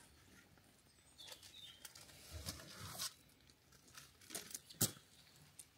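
Faint footsteps crunching on a gravel driveway, a handful of irregular steps, the sharpest near the end.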